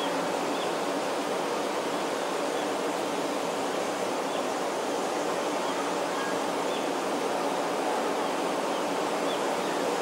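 Forest ambience: a steady, even rush of noise with a few faint, short, high bird chirps now and then.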